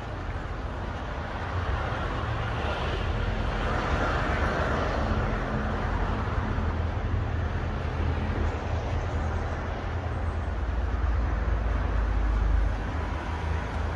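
Road traffic: a passing vehicle's tyre and engine noise over a continuous low rumble, swelling about four seconds in.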